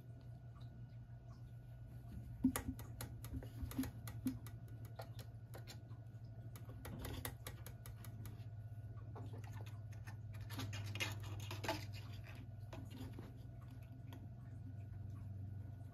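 A kitten's paws and claws patting and ticking on a wooden surface as it scampers about, in quick irregular clicks from about two seconds in, over a steady low hum.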